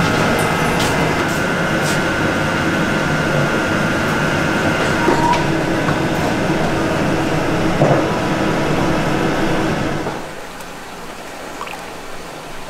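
Steady hum and whine of pottery-factory machinery running, with a few faint clicks. About ten seconds in it drops to a much quieter background.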